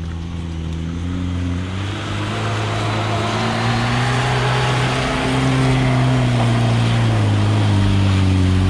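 Lada Niva 4x4's engine pulling under load through mud, growing louder and rising a little in pitch as the car drives closer, with a hiss of tyre and mud noise.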